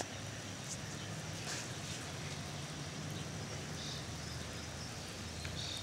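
Steady outdoor background of a low hum and faint hiss, with a few brief, faint bird chirps near the end.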